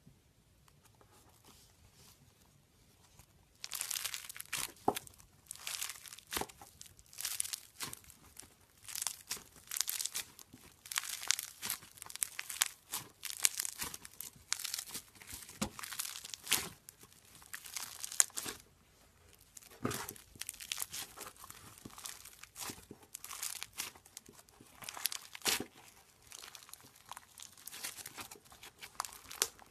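Hands squeezing and kneading crunchy slime packed with small foam beads, the beads crackling and popping in irregular bursts. The crackling starts about four seconds in, after a quiet opening.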